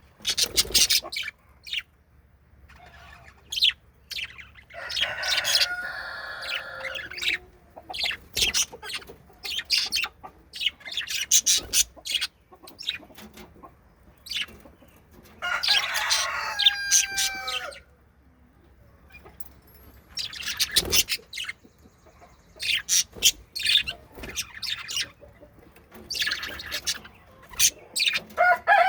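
Budgerigars chirping and chattering: many quick, sharp chirps, with two longer warbling calls about five and sixteen seconds in.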